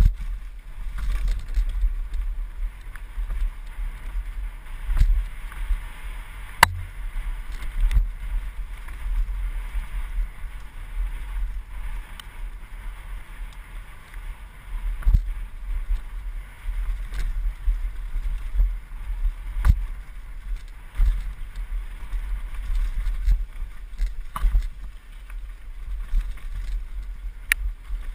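Mountain bike running down a rough dirt forest trail: a low, uneven rumble from the tyres and wind on the microphone, broken by sharp knocks and rattles of the bike hitting roots and rocks, the loudest about six and a half seconds in.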